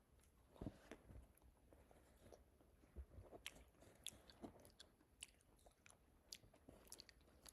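Faint biting and chewing of a vanilla caramel crunch ice cream bar, its crunchy coating of rice-crisp pieces crackling in short irregular crunches.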